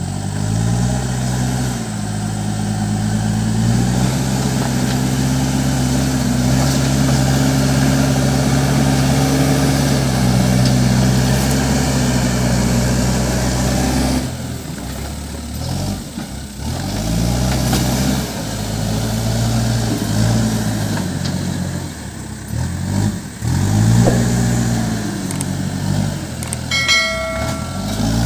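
Case 580 Super M backhoe loader's diesel engine working while levelling gravel: it revs up and holds high for about ten seconds, then rises and falls in several short revs. Near the end a brief steady high tone sounds for about a second and a half.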